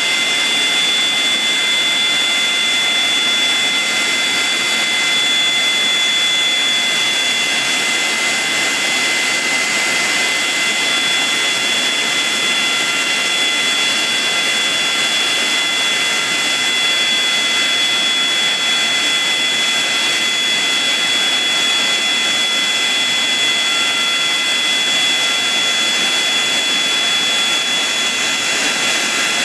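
Boeing 737-200's Pratt & Whitney JT8D jet engines running steadily at idle, a loud jet rush with a steady high-pitched whine.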